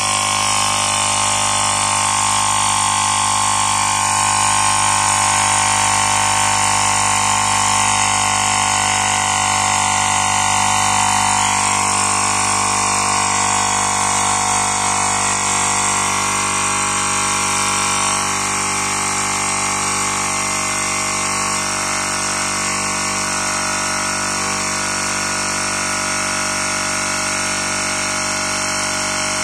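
Battery-powered portable diaphragm air compressor running continuously while inflating a bicycle tyre, a loud, steady hum with a fixed pitch. It eases slightly in loudness a little past halfway as the tyre pressure builds.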